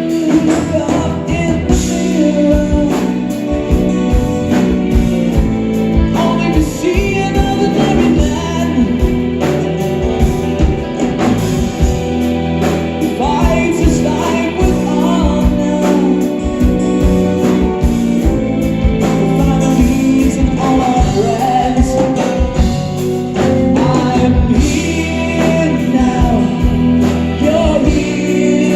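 Live progressive rock band playing: drum kit and bass under sustained chords, with a gliding melodic lead line on top.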